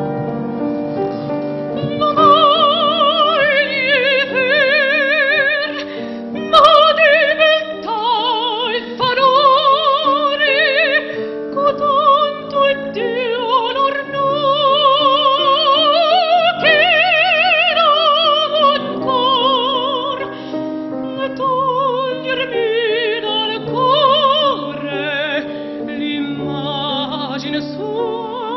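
Operatic soprano singing an aria with a wide vibrato on long held notes, accompanied by a grand piano.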